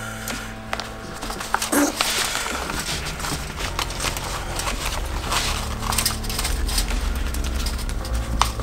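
Thin latex sheeting rustling and crackling as hands press its rubber-cemented seam edges together, with tin foil over the sheet crinkling, many short irregular crackles. Steady background music runs underneath.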